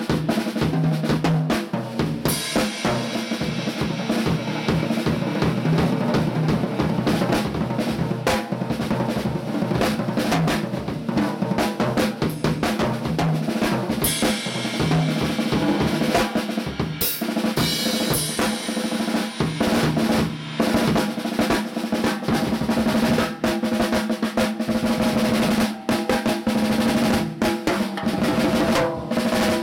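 Drum kit played continuously: fast snare strokes and rolls on a Mapex Black Panther 'Sledge Hammer' brass snare drum, with toms and bass drum. Cymbal crashes come in about 2, 14 and 18 seconds in.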